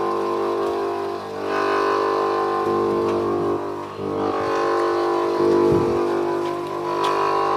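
Bench grinder running steadily while an HSS lathe tool bit is pressed against the grinding wheel in repeated passes, the grinding noise swelling with each contact about every two to three seconds.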